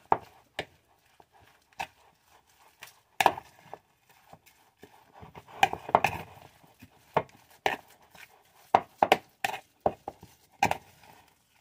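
A metal fork clinking and scraping against a glass bowl while stirring a thick batter of mashed sweet potato and oat flour. Irregular taps, some coming in quick runs.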